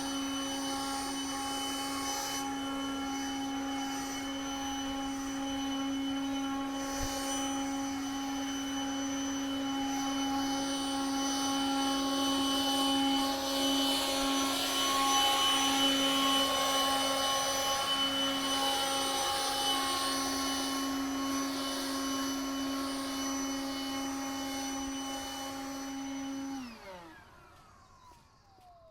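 Snow blower running steadily with a constant whine. Near the end it is shut off and the whine falls in pitch as it spins down.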